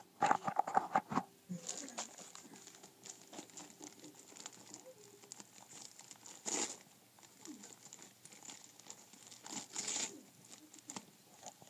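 Christmas wrapping paper crinkling and rustling as a dog noses and mouths a wrapped present, with a few louder crinkles about halfway through and near the end.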